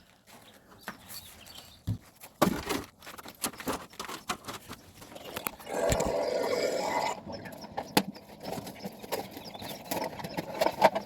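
Scattered clicks and knocks from handling swamp cooler parts while starting on the water pump. About six seconds in there is a louder, rough noise lasting just over a second.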